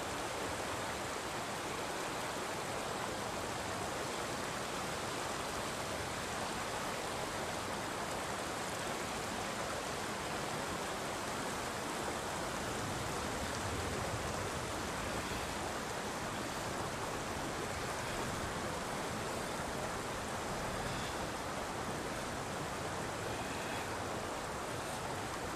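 Steady rushing of a mountain stream flowing over a stony bed.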